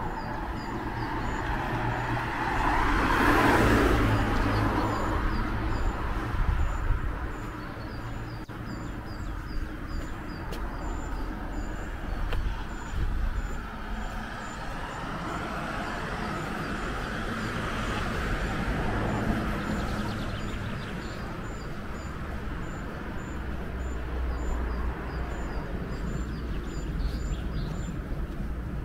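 Village street ambience: passing cars swell and fade, one about three seconds in and another around nineteen seconds, over a steady low rumble. A bird chirps in an even, repeated series of short high notes through most of it.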